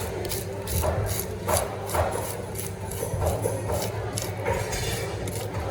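A knife working on a rock snapper, making a run of irregular scraping, sawing strokes.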